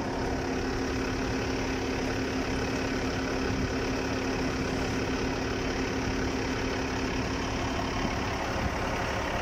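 Engine idling steadily, with an even hum that does not change.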